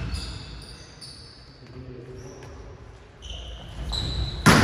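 Hall sounds with a few brief high squeaks, then near the end one sharp smack of a volleyball being struck, as on a serve.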